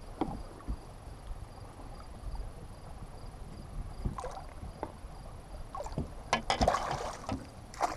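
Water lapping against the side of a bass boat with a few soft knocks, then about six seconds in a splashing burst lasting over a second as a hooked smallmouth bass thrashes just under the surface beside the hull.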